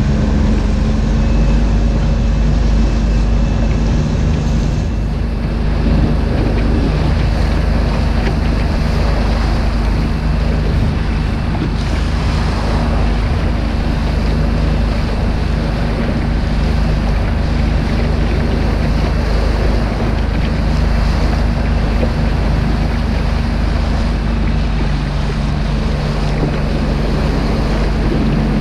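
Rigid inflatable boat's engine running at a steady speed, under heavy wind buffeting on the microphone and water rushing and slapping along the hull. The engine tone eases a little through the middle and comes up stronger near the end.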